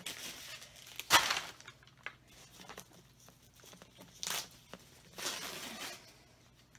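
Thin plastic wrapping crinkling and rustling in several short bursts as it is pulled off a leather handbag's handles, the loudest about a second in.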